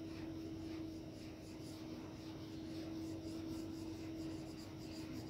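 Soft 4B graphite pencil hatching on drawing paper: faint, repeated scratching strokes as a sphere is shaded. A steady low hum runs underneath.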